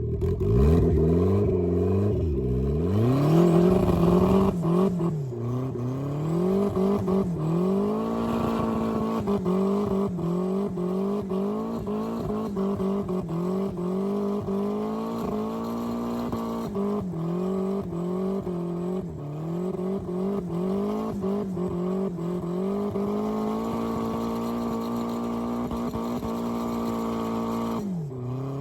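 Turbocharged Mazda Miata's four-cylinder engine under hard acceleration, its pitch climbing and dropping again and again as it revs and shifts. Later it holds a steady pitch for several seconds before dropping once more near the end.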